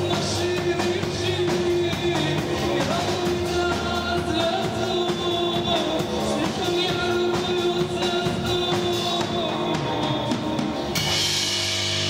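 A live rock band playing: drum kit, electric bass and synthesizer, with a sung voice over held tones. About a second before the end the drumming stops and a noisy wash of synth sound takes over.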